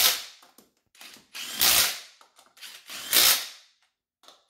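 Power tool run in three short bursts about a second and a half apart, each burst a brief blip followed by a half-second run, while the ATV's front wheel is being fastened back on.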